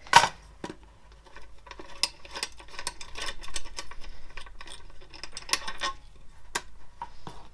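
A sharp knock, then a run of small, irregular clicks and taps from hands working with metal parts and tools, with one more knock near the end.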